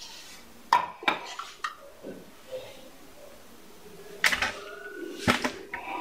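Stainless-steel mixer-grinder jar being handled and set down on a countertop. A few light knocks come in the first two seconds, then two louder metallic clanks with a short ringing about four and five seconds in.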